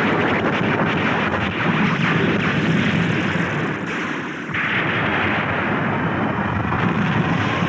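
Cartoon space-battle sound effects: a battleship's gun turrets firing and missiles exploding, heard as a continuous dense blast noise that shifts in character about four and a half seconds in.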